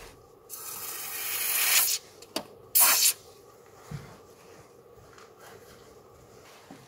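Aerosol can of Fluid Film lanolin rust-proofing oil spraying through a thin extension straw: a hiss of about a second and a half that grows louder, then a second short burst about a second later. A soft thump follows about a second after that.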